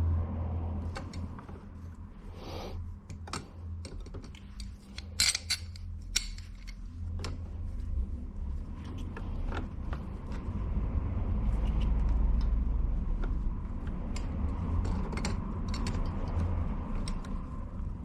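Metal wiper-mechanism linkage handled and worked by hand: scattered sharp clicks, scrapes and light knocks as its plastic ball-joint socket is pushed against the ball pin and won't snap on, the aftermarket socket being too small. Two louder knocks come about five and six seconds in.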